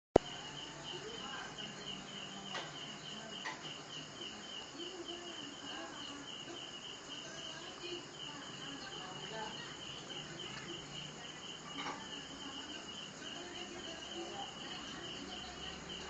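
An insect, most likely a cricket, chirping steadily in a fast, even pulse over a low background hiss. A sharp click at the very start and a few faint clicks later.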